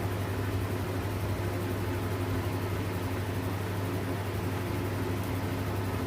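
Steady low electrical or machine hum over a constant hiss, unchanging throughout.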